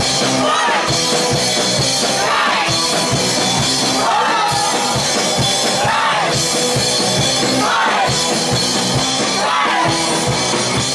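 Live punk rock band playing: electric guitar, bass and a fast, steady drum beat, with a woman's voice singing and shouting over it.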